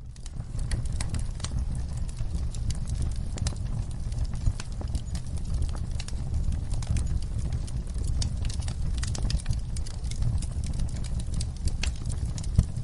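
Wood fire crackling in a fireplace: a steady low rumble of burning logs under many irregular sharp pops and snaps, with one louder snap near the end.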